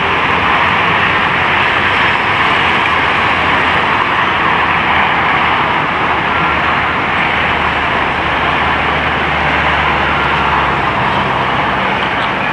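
Steady road and engine noise of a moving vehicle, heard from on board, with a deeper engine drone for a few seconds past the middle.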